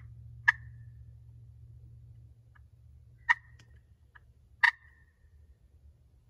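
Three loud, sharp single turkey clucks spread over a few seconds, with a few fainter short ticks between them.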